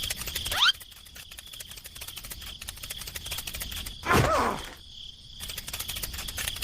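Steady high chirring of crickets, with a short rising glide about half a second in and a louder falling swoop at about four seconds.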